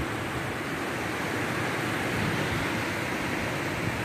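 Surf: small waves breaking and washing up a sandy beach, a steady even rush.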